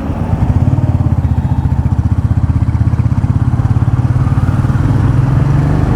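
Royal Enfield Meteor 350's single-cylinder engine running under way, its exhaust beating in a quick, even pulse that gets louder in the first half second and then holds steady.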